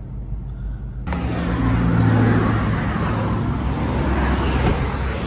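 Car engine and road noise. It starts abruptly about a second in and runs steadily, with a low engine hum under a wide rush of noise.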